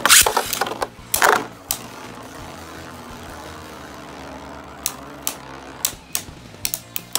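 Two Beyblade Burst tops, a 3D-printed Ares and Spriggan Requiem in left spin, launched into a plastic stadium with two loud rasping bursts in the first second and a half. They then spin with a steady whir and clack against each other several times, about five to seven seconds in.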